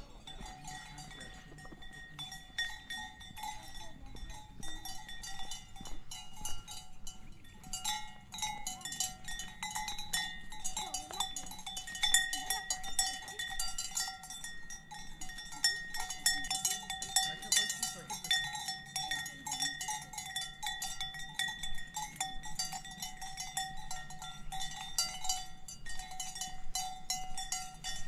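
Cowbells on grazing livestock clanking irregularly, many bells ringing together in a dense jangle that grows busier about eight seconds in.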